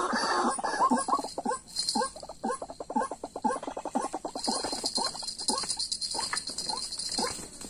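White-breasted waterhens calling: a long run of short, harsh, repeated croaking notes, quick at first and then slowing to about one or two a second. A steady high hiss joins about halfway through.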